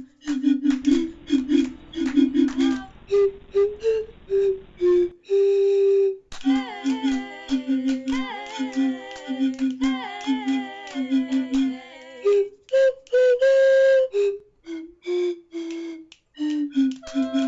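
Theme-song music: short whistle-like notes repeated in a quick rhythm over a clicking beat, with a higher melody line that slides up and down in the middle stretch.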